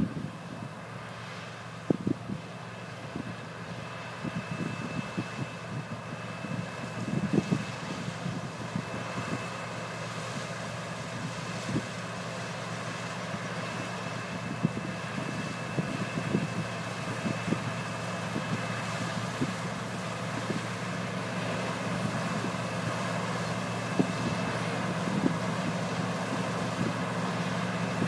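John Deere 9760 combine running steadily while harvesting wheat: a constant engine drone with a thin high whine over it and scattered short knocks. It grows a little louder in the second half.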